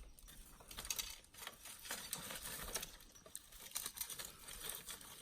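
Faint, irregular clicks and light rustling.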